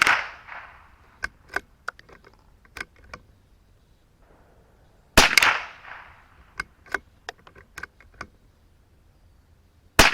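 Two .22LR rifle shots from a CZ 457 bolt-action rifle, one about five seconds in and one at the very end, each with a short ringing tail. Between them come several light metallic clicks, the bolt being worked to eject the case and chamber the next round.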